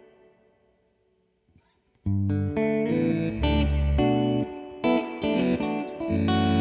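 Electric guitar played through an Old Blood Noise Endeavors BL-44 reverse pedal. A ringing tail fades almost to silence, then about two seconds in the playing comes back loudly with deep low notes under the chords.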